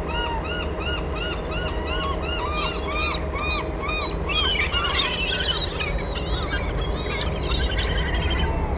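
Gulls calling: a run of short, arched cries at about two or three a second, then from about four seconds in a dense squabble of shrill, overlapping squeals from several birds.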